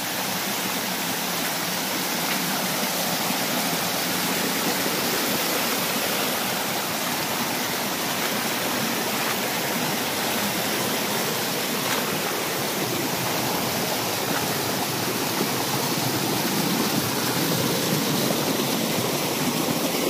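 Water rushing and splashing as it runs in thin sheets and small cascades down a smooth sloping rock face: a steady, even rush.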